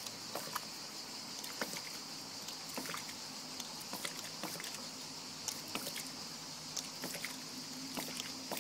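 Waste valve of a DIY hydraulic ram pump, a brass check valve, being worked by hand to restart the stalled pump. It clacks shut in irregular sharp clicks as water spurts from it, over a steady high hiss.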